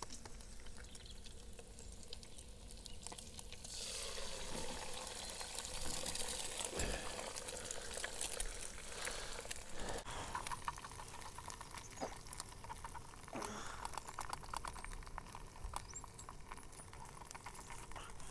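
Bacon sizzling in a non-stick frying pan on a Trangia 25 methylated-spirits stove, with fat crackling. About four seconds in an egg goes into the hot fat and the sizzle swells into a strong hiss, then settles to a steadier sizzle.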